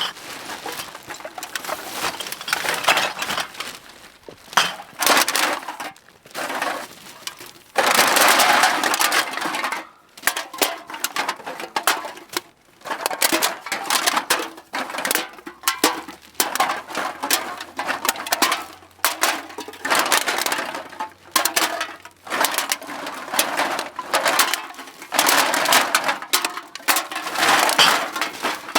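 Cans being dropped into a bag, clinking and clattering against each other with the bag rustling, in repeated bursts separated by short pauses.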